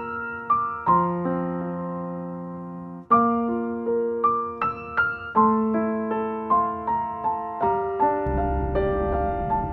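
Background music: a slow solo piano melody, single notes and chords struck and left to ring out. A low rumbling noise comes in under it near the end.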